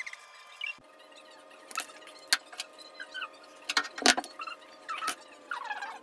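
Metal bracelets clinking and hands rustling through hair in short sharp bursts, over a steady, faint whine in the background.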